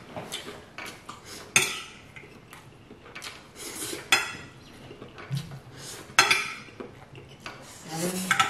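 A fork scraping and clinking against a plate while food is scooped up, with several sharp clinks.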